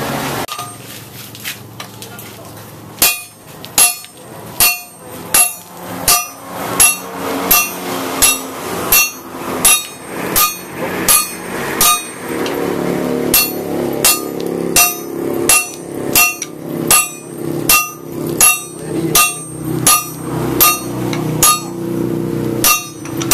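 Sledgehammer blows on a handled top tool held against a red-hot leaf-spring blade on an anvil: a steady run of ringing metal strikes, about one and a half a second, starting about three seconds in. This is hand-forging a bolo knife from leaf-spring steel with a striker and smith.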